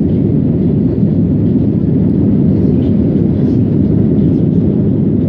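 Airplane cabin noise in flight: a steady low rumble that neither rises nor falls.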